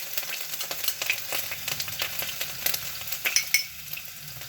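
Chopped garlic sizzling and crackling in hot oil left from frying chicken, with a spatula scraping and clicking against the pan as it is stir-fried.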